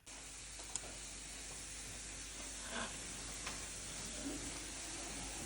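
Steak sizzling in a hot pan: a steady frying hiss with a few faint pops of fat.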